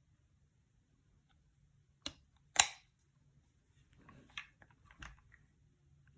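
Sharp metallic clicks from handling a Romanian Mini Draco AK pistol: one click about two seconds in, a louder clack just after, then a few lighter clicks and rattles near the middle.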